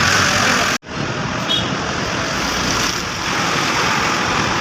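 Small 70 cc motorcycle engine running, heard as a steady rushing noise with no clear pitch. The sound drops out abruptly for an instant about a second in.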